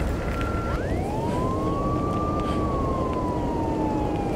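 Emergency vehicle siren wailing: it rises about a second in, then falls slowly, over a steady low rumble. A steady high tone is heard before the siren and stops as it rises.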